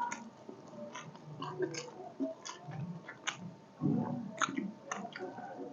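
A person chewing and biting food, with irregular short wet clicks and small crunches.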